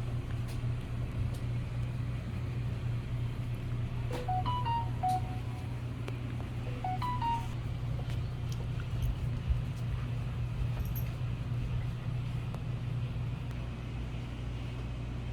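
Steady low drone of a running vehicle. Two short runs of rising pitched notes come through it, about four and seven seconds in.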